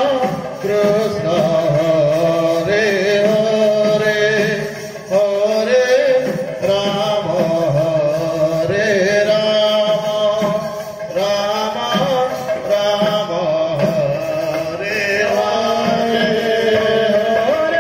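Kirtan: devotional chanting and singing with musical accompaniment, running on continuously.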